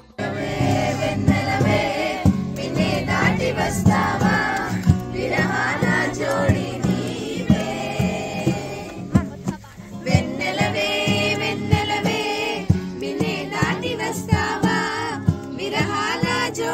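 A group of people singing together to a strummed acoustic guitar.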